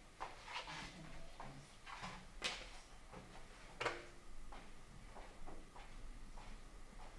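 A shogi piece clacked down onto the wooden board about two and a half seconds in, then a game clock's button pressed about a second later with a short ring after it. Softer taps and handling noises come before them.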